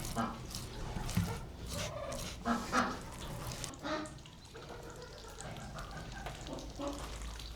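Domestic fowl calling in a few short, scattered calls, with some light clicks between them.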